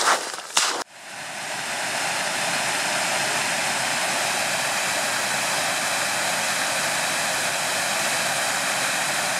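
A dog's footsteps on bare ice, a couple of sharp steps, then a waterfall rushing steadily. The water sound fades in about a second in and holds level.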